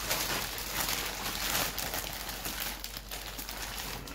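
A white plastic poly mailer bag being torn open and crumpled by hand: dense, continuous crinkling and rustling with irregular sharp crackles.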